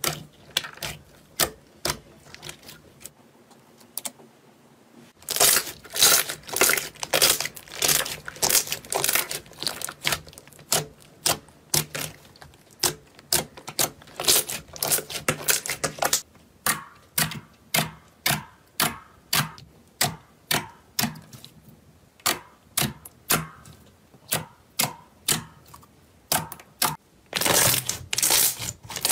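Hands pressing, squeezing and poking glossy slime, making sharp sticky clicks and pops. They come sparsely at first, then in quick, dense runs of several a second.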